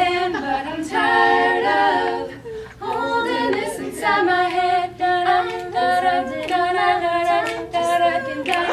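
A small mixed group of young voices, three girls and a boy, singing a cappella in harmony, with a brief breath pause about two and a half seconds in.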